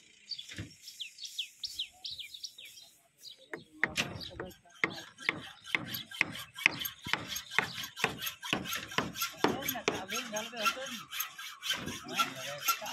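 Birds chirping for the first three seconds or so, then a steady rhythm of rasping, scraping strokes, about three a second, which become the loudest sound.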